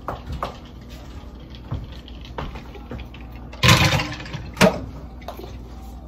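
Plastic baby bottles being handled while bottles are made up: scattered light clicks and knocks, a short louder clatter a little past halfway, and a sharp click just after it.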